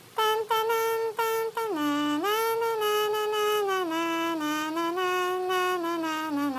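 A musical baby toy playing a tune: a run of short notes, then longer held notes.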